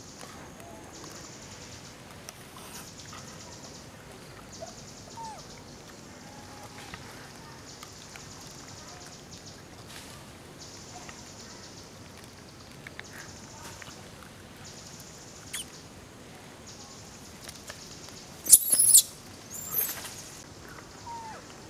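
Monkeys squealing: two loud, short, high-pitched calls near the end. Behind them is a steady outdoor background with a high buzzing that pulses on and off every second or two, and a few faint chirps.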